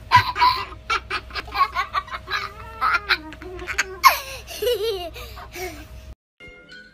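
A cockatoo giving a long run of loud laugh-like cries, short ha-ha calls with wavering pitch, that cuts off abruptly near the end.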